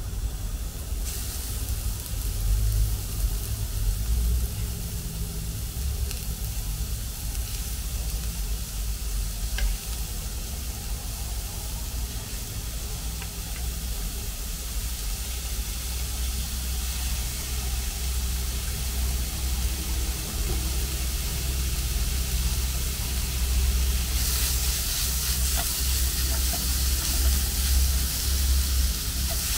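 Food frying in a hot pan, a steady sizzle with some stirring, over a continuous low rumble. The sizzle grows louder in the last few seconds.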